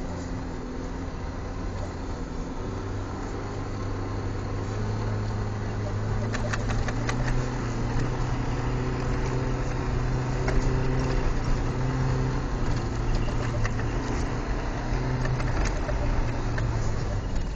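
Nissan 240SX's engine running at fairly steady revs, heard from inside the cabin as the car slides on snow. It gets louder about six seconds in, and a scatter of sharp clicks and ticks runs through the rest.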